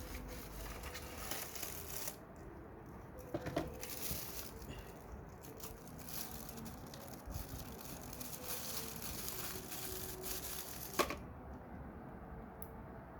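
Packaging being handled: crinkling and tearing of wrapping as lamps are unpacked, with scattered clicks. A sharp click comes about 11 seconds in, after which the rustling stops.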